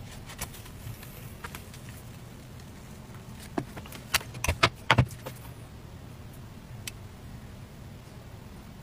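Handling knocks from an electric crepe maker pan: several sharp clacks bunched around the middle as the pan is turned over above a steel tray to drop the crepe, with one more small tick near the end. A low steady hum runs underneath.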